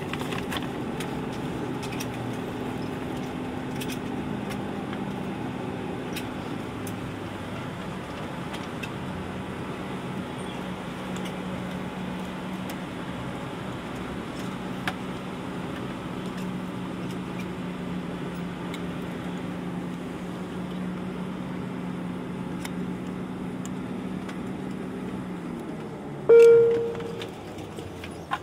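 Steady hum inside the cabin of a DHC-8-Q400 turboprop parked at the gate with its propellers winding down after engine shutdown; the hum stops about 25 seconds in. Just after, a single loud cabin chime sounds for about a second.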